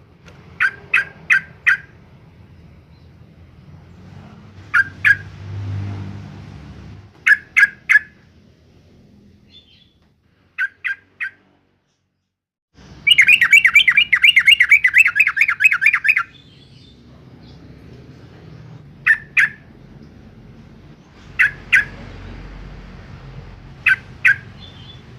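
Yellow-vented bulbul calling: short bursts of three or four quick notes repeated every few seconds, and about halfway through a loud, rapid chattering run of notes lasting about three seconds.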